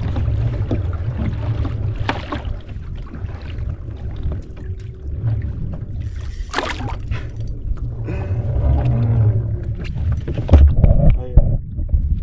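Sea kayak adrift: water slapping and sloshing against the plastic hull, over a steady low wind rumble on the microphone, with a few sharp knocks.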